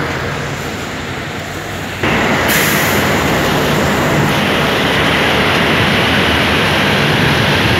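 Steady engine and road noise from riding a motorcycle behind a bus inside a road tunnel. It becomes suddenly louder about two seconds in and stays loud.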